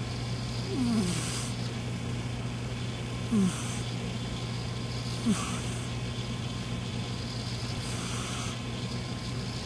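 Cat snoring: slow breaths about every two to three seconds, the first three with a short falling, whistle-like tone, the later ones fainter, over a steady low hum.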